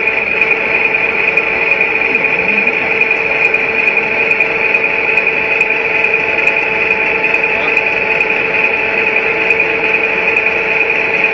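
T-55A tank's turret traverse drive running steadily as the turret swings round: a constant whine over a grinding noise, with no change in pitch.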